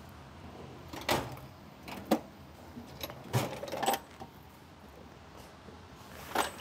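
Hand tools clinking and knocking against metal, a handful of separate sharp clicks over a few seconds.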